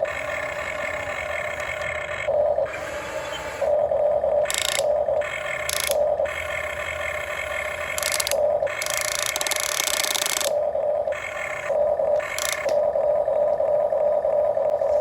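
Remote-control excavator's electric motors whining, cutting in and out in short spells as the controls are worked, with several brief bursts of harsher hiss, the longest about eight seconds in.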